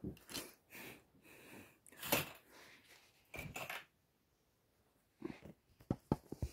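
Faint scattered rustles and breathy puffs, a quiet stretch, then a few quick clicks and knocks near the end as the handheld phone is moved.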